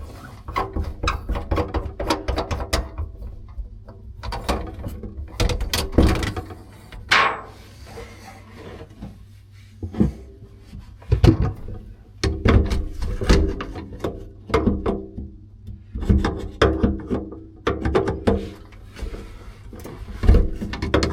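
Background music, with irregular clanks and knocks throughout.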